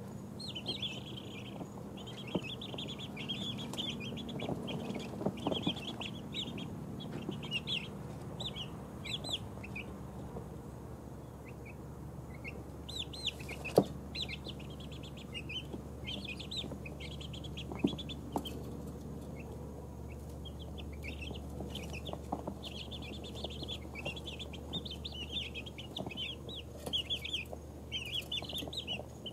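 A brood of two-week-old chicks peeping in quick runs of short high peeps as they huddle and settle to sleep, the peeping thinning out briefly about halfway through. A low steady hum lies underneath, and two sharp clicks stand out around the middle.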